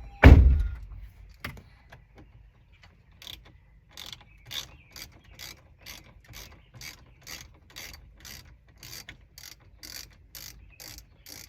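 A loud knock about a quarter second in, then a socket ratchet clicking in a steady rhythm of about two to three clicks a second as a 5/16 socket turns out a cup-holder bolt.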